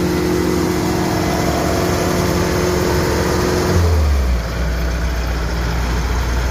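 Kubota DC105X combine harvester's diesel engine running steadily as the machine crawls on its tracks. About four seconds in the sound shifts to a deeper, lower drone.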